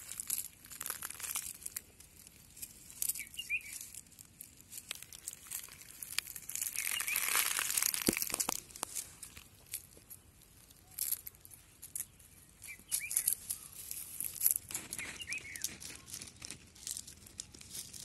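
Dry leaves and twigs crackling and rustling underfoot in irregular bursts, with a longer stretch of rustling about seven seconds in. A bird chirps briefly a few times.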